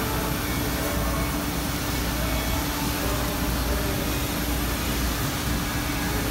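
Steady machinery hum with a constant low tone and a low rumble underneath, unchanging throughout.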